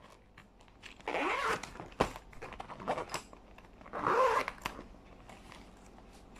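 A zipper on a mesh pencil pouch zipped in two short strokes, about a second in and about four seconds in, with small knocks and rustles from items being handled between them.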